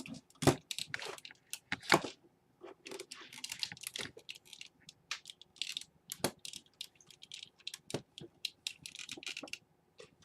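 Irregular small clicks, taps and rustles of hands working front-panel cables and plastic plug connectors onto motherboard header pins inside a cramped mini-ITX PC case.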